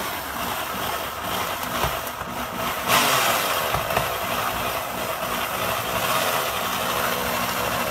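PullzAll electric winch motor running steadily as it winds in its chain to lift a cylinder head off the engine, getting louder about three seconds in.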